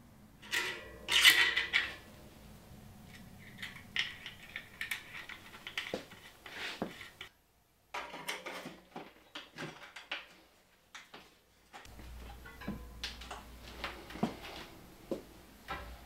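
Scattered light metallic clicks and clatter as a quick-release skewer is handled and a bicycle front wheel is fitted into the fork. Near the end the wheel is spun, with a faint low hum under the clicks.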